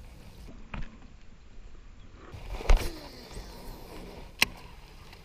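Handling knocks on a bass boat while a fish is landed: one heavy thump about two and a half seconds in, then a single sharp click near the end.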